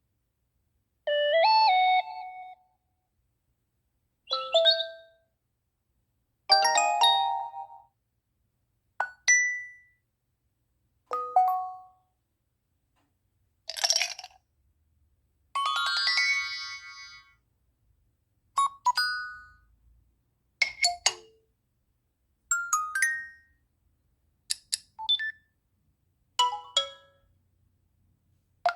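A run of about a dozen cell phone notification tones played one after another, each a different short melodic alert that fades quickly, about two seconds apart.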